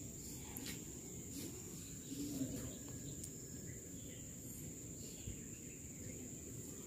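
Quiet outdoor background with a steady, high-pitched insect trill and a low rumbling noise underneath, broken by a few faint ticks.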